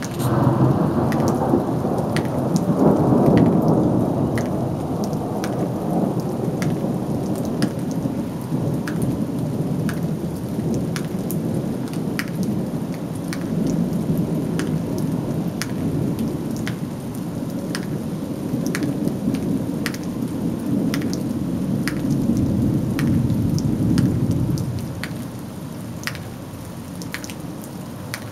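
A long peal of thunder breaks suddenly at the start, is loudest a few seconds in, and rumbles on before dying away a few seconds before the end. Steady rain runs underneath, with many sharp ticks of drops striking close by.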